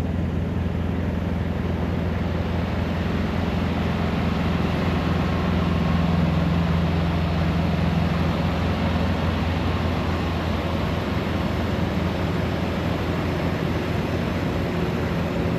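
A vehicle's engine runs steadily, giving a low drone with a wash of noise over it. It grows a little louder about a third of the way in, then settles again.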